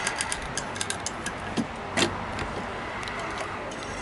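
Hand rivet tool at work on a steel patch plate: a quick run of small metallic clicks, then a sharper snap about two seconds in, over a steady low hum.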